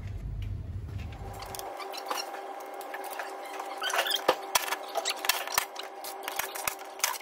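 A small power tool's motor running steadily while the heat-shield bracket bolts are undone, with a scatter of metallic clicks and a few sharper knocks from about halfway through.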